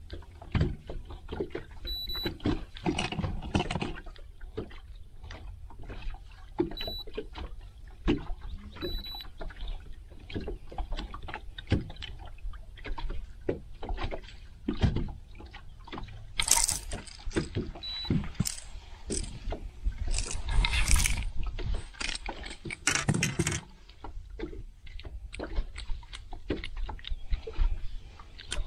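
Knocks and handling sounds on a small fishing boat, with water splashing in several loud bursts in the second half. A few short, high beeps sound now and then.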